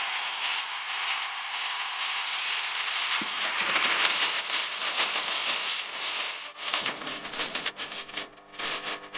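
A steady hiss that breaks up into irregular crackles and clicks over the last few seconds.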